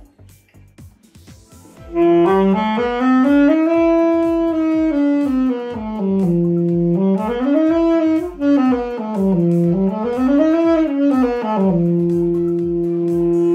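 Yamaha YAS-280 student alto saxophone played slowly note by note, starting about two seconds in: a stepwise scale up and back down, then two short rising-and-falling runs, ending on a long held low note.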